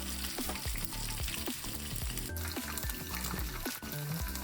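Bite-size chicken pieces sizzling in hot canola oil as they are refried for extra crispness, with background music over it.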